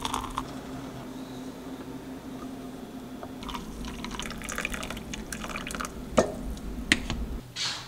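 Hot water poured from a kettle into a French press, then, about halfway through, brewed coffee poured from the press into a mug. Two sharp knocks near the end as the press is set down on the stone counter.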